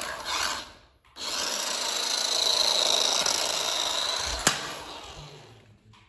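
Toy remote-control car's small electric motor and gears whirring with a steady high whine as it drives with its rear tyre rubbers removed, bare plastic wheels spinning on a hard stone floor. The sound cuts out briefly about a second in and fades toward the end, with a single sharp click about four and a half seconds in.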